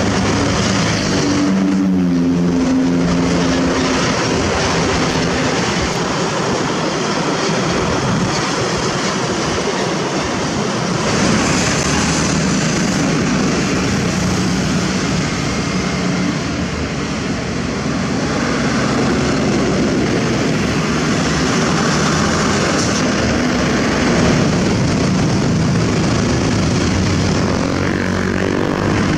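Road traffic: a heavy truck's diesel engine running close by, with a steady rush of road and wind noise and motorcycles passing.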